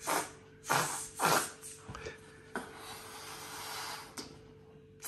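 Three short puffs of blown air, then a longer steady hiss of air lasting over a second.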